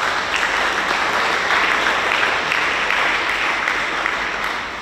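Congregation applauding: dense, steady clapping from many hands that begins to die away near the end.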